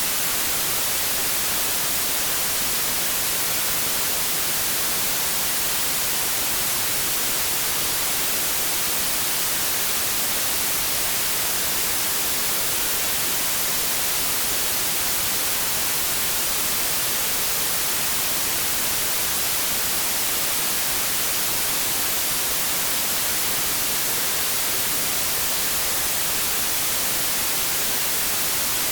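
Steady white noise: an even, bright hiss of static with no changes in level.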